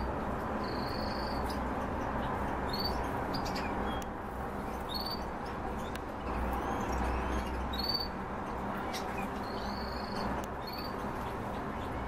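Several cage birds giving short high chirps and brief whistled notes at irregular intervals, over a steady background hiss.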